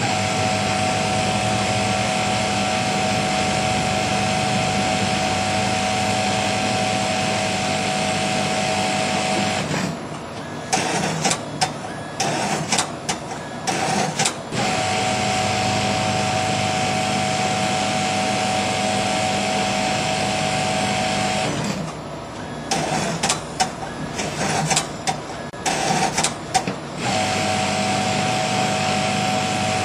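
Industrial sewing machine (model 1335M) running steadily as it stitches a mattress foundation cover. It stops twice, about ten and about twenty-two seconds in, for a few seconds of irregular clicks and knocks, then starts running again.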